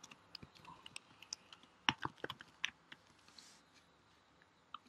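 Faint typing on a computer keyboard: a short, irregular run of key clicks, about a dozen, mostly in the first three seconds, the loudest around the two-second mark.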